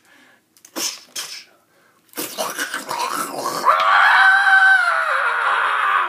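A man's drawn-out scream, voiced in play, starting about two seconds in, held loud, then falling in pitch near the end; two short hissing breaths come before it.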